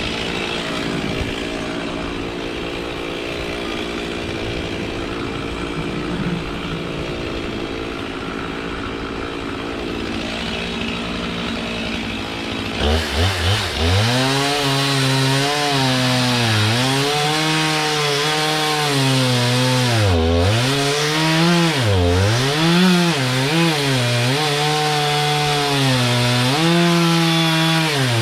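Two-stroke chainsaw cutting magnolia wood. It runs steadily at first, then grows louder and closer about halfway through. From there its engine speed repeatedly drops and recovers as the chain bites into the wood.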